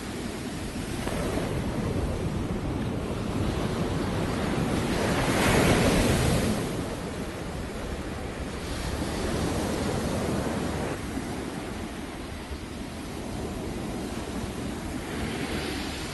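Surf breaking on a sandy beach, waves rushing in and falling back in slow swells, the loudest about five to six seconds in, with wind on the microphone.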